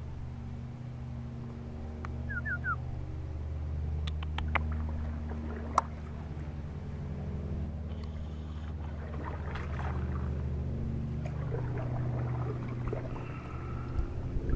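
Steady low engine hum, with three quick falling chirps from a small bird about two seconds in and a few sharp clicks between about four and six seconds in.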